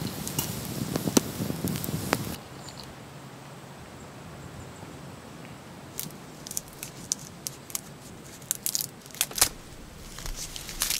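Campfire crackling and popping until a cut about two seconds in. After a quiet stretch, from about six seconds, a run of short sharp scrapes from a knife blade scraping the skin off a wild root.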